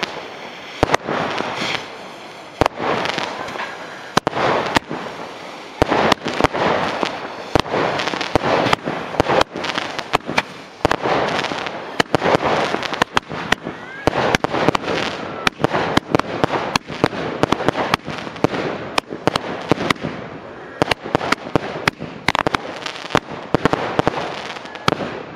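Ground fireworks burning in a metal box: a steady hiss of spraying sparks with rapid, irregular sharp cracks all through.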